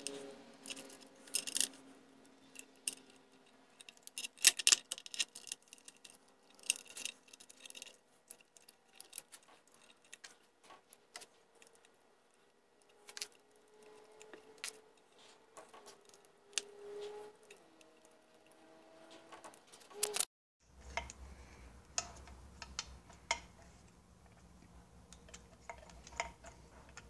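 Scattered light clicks and taps of small metal parts being handled and fitted, as the choke solenoid and its linkage are put back onto a Johnson 15 HP outboard.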